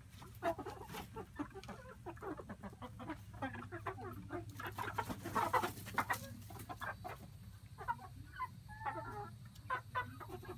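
Chickens clucking, a busy run of short overlapping calls, over a steady low hum.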